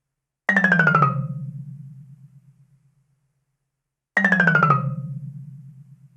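Cartoon-style comedy sound effect: a pitched tone that starts suddenly, drops in pitch and wobbles rapidly as it fades, played twice about three and a half seconds apart.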